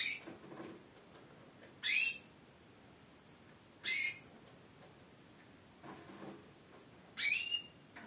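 Female Timbrado canary calling: four short, sharp, upswept call notes, spaced about two seconds apart with a longer gap before the last.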